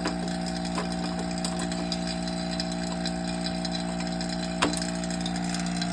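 Vacuum pump on a DIY vacuum chamber running with a steady hum, with a few light clicks over it, the sharpest about four and a half seconds in.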